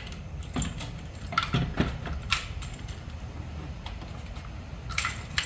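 Scattered clicks and clunks of an electric bike's battery pack being fitted back onto the frame, with a few sharp knocks about a second in, near two seconds and near the end.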